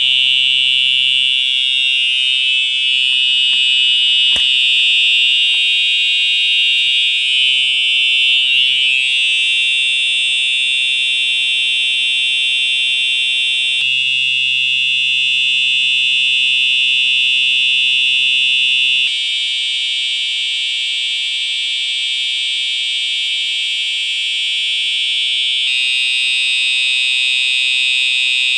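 Home fire alarm system notification devices sound during a system test, set off from a manual pull station. The harsh, buzzy alarm tone cuts in abruptly and sounds continuously without pauses. Its character shifts a few times: about 14, 19 and 26 seconds in.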